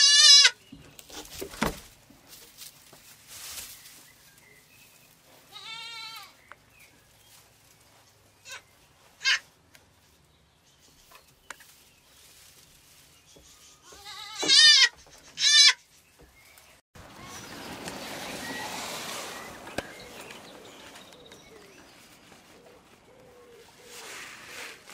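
Goat bleating: several short, high, quavering bleats, one at the start, one about six seconds in and two close together past the middle. A few seconds of soft rustling noise follow.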